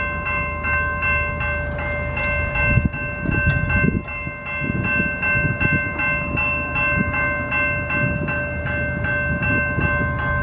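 Railroad crossing warning bells ringing at a steady beat of about three strikes a second as the crossing activates. A low rumble rises and fades about three to six seconds in.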